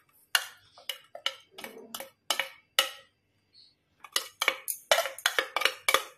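Steel spoon tapping and scraping against a plate, knocking spice powders off it into a bowl. It makes a run of sharp clinks, then a quicker cluster of taps about four seconds in.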